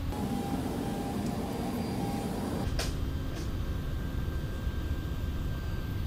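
Steady low background rumble, with one sharp click about three seconds in and a fainter one just after.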